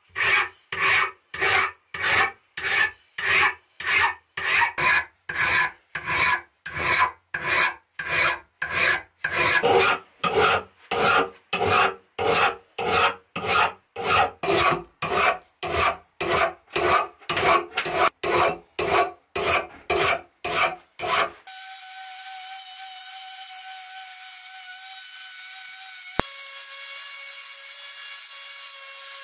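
A flat hand file rasping across the steel head of a rusty ball-peen hammer in even strokes, about two a second, stripping rust. About three-quarters of the way through, the filing stops and a Dremel rotary tool runs with a steady whine as its sanding drum grinds the hammer face; its pitch drops slightly after a click near the end.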